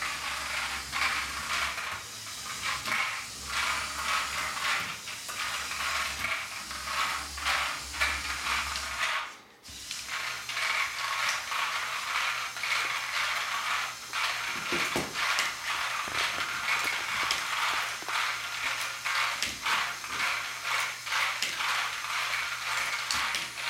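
LEGO Power Functions electric motors driving a remote-controlled LEGO cement truck and turning its mixer drum: a steady motor hum under busy clicking and whirring of plastic gears. About nine and a half seconds in the motors cut out briefly, then start again with a slightly higher, steadier hum.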